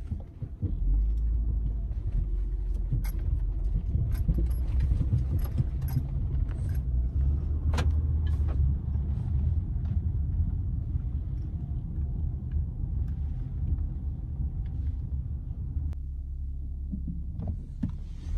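A car's engine and road noise, a steady low rumble heard from inside the moving car's cabin, with scattered light clicks and rattles.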